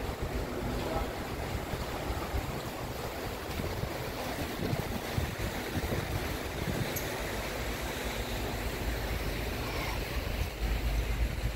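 Wind buffeting the microphone, a steady rush that grows stronger near the end.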